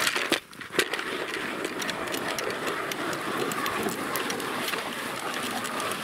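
Hand ice auger drilling a hole in the ice: a steady grinding crunch full of small cracks, after two sharp knocks in the first second.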